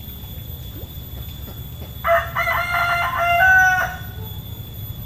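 A rooster crows once, about two seconds in: a single crow of nearly two seconds that steps in pitch and ends on a drawn-out note.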